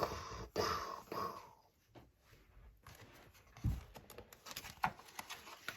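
Handling of a picture book: a short paper rustle, then scattered soft clicks and one low thump.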